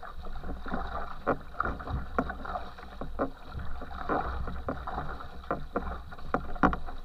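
Water rushing and splashing around the stern of a racing canoe moving fast through shallow riffles, under a steady low rumble. Frequent irregular sharp splashes and knocks, several a second, break through it.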